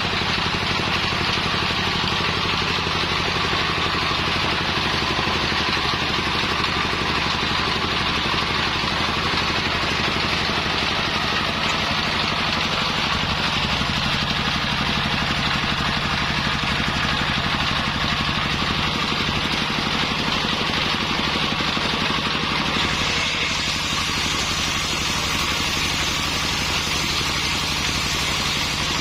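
Engine-driven circular saw machine running steadily, a continuous motor drone with a whirring hiss above it.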